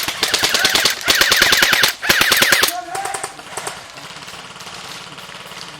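Airsoft guns firing full-auto as a rapid rattle of shots: two long bursts close by, the first breaking off about two seconds in and the second stopping shortly after. Fainter firing follows.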